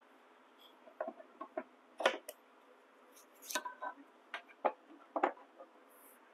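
Orange plastic spindle-sander table inserts clicking and knocking against the sander's plastic base as they are handled and pushed into their storage slots: an irregular run of a dozen or so sharp clicks.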